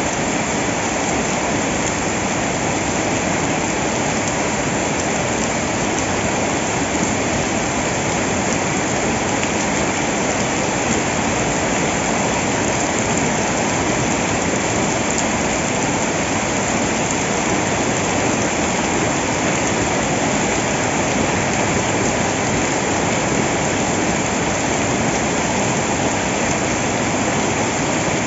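Heavy rain falling steadily: a dense, even rush of water with no separate drops or breaks.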